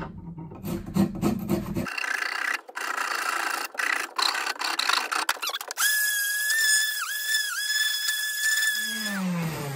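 Hand rasp scraping in strokes on a wooden axe handle, taking down the handle so the axe head seats. Then an electric random orbital sander starts with a steady high whine, dips in pitch twice as it is pressed on the wood, and winds down near the end.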